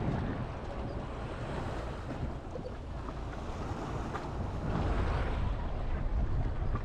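Wind rumbling on the microphone over the wash of small sea waves on the shore, with a louder wash of water about five seconds in.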